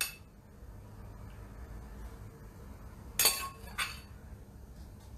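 Metal slotted spoon tapping and clinking against a pan and pasta bowls as cooked spinach is served: one tap at the start, then two short clinks about three and four seconds in.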